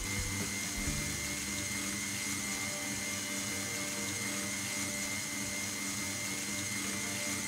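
Electric stand mixer running steadily at low speed, a constant motor hum, whipping egg whites into meringue.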